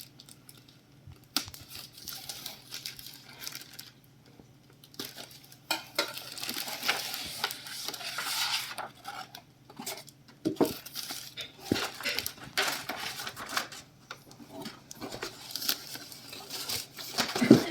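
Packaging being handled and pulled open: irregular crinkling and rustling with scattered knocks and clicks, in stretches of a second or two.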